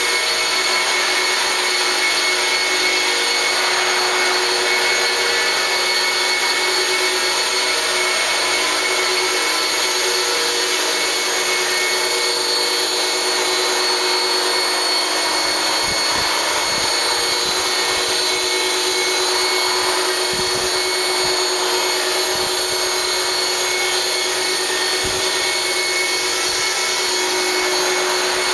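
450-size electric RC helicopter with a scale UH-1 Huey fuselage in hover: steady whine of its electric motor and drive gears under the whir of the rotor blades.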